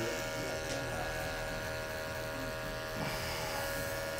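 Electric hair clippers running with a steady motor buzz as they cut up the side of the head, blending a skin fade.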